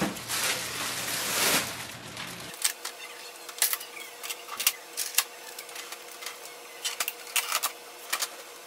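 Plastic wrapping rustling as it is pulled off a Canon Pixma TR7620a printer. Then a string of sharp, irregular plastic clicks and clacks as the printer's covers are handled and its scanner unit is lifted open.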